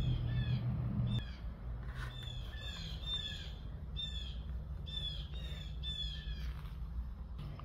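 Small birds chirping: a run of short, downward-sliding chirps, several a second, over a low steady hum.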